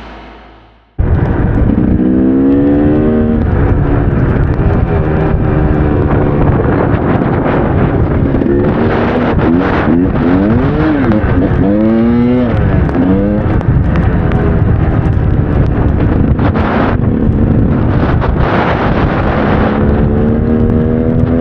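KTM EXC 300 two-stroke enduro motorcycle engine running under way, its revs rising and falling repeatedly as the throttle is worked.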